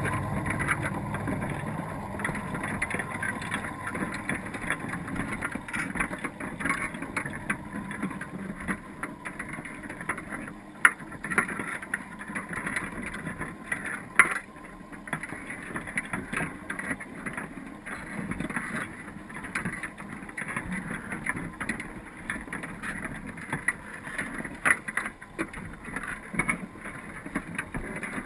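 Underwater sound inside a submerged crab pot: a steady wash of water noise with frequent small clicks and crackles, and two sharper knocks near the middle. A low rumble fades out over the first couple of seconds.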